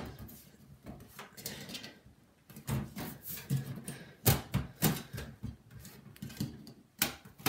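Side panel of a computer case being fitted and aligned: a series of sharp knocks and clunks, bunched together from a little after two seconds in, the loudest around four seconds in, with another strong knock near the end.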